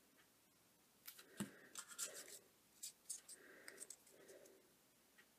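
Faint handling noises: red cardstock pieces rustling and scraping against each other in the hands, with a scatter of small clicks and one soft knock about a second and a half in.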